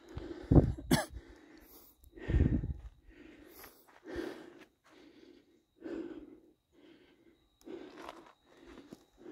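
A hiker's heavy breathing, short breaths coming about once a second. Two loud low rumbles come in the first few seconds.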